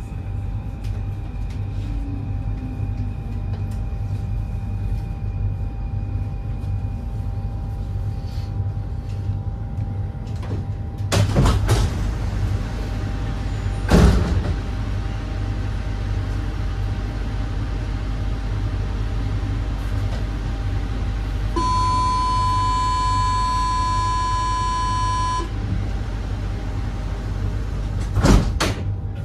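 Paris Métro train standing at a platform with a steady low hum. Door thuds come about eleven and fourteen seconds in. A steady electronic door-closing warning tone then sounds for nearly four seconds, and the sliding doors shut with a thud near the end.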